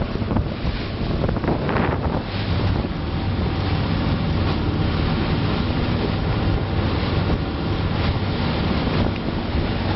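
A small passenger ferry running steadily under way: a steady engine hum under water rushing past the hull, with wind buffeting the microphone.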